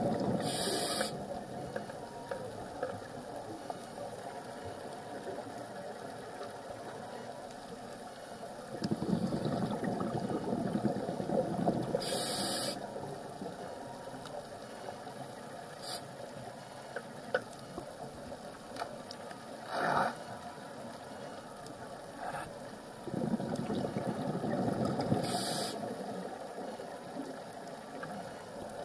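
Scuba diver's breathing through a regulator, heard through an underwater camera housing. A few seconds of rushing exhaled bubbles, each ending in a short hiss, repeat slowly about every twelve to thirteen seconds over a steady underwater hiss, with a few sharp clicks between.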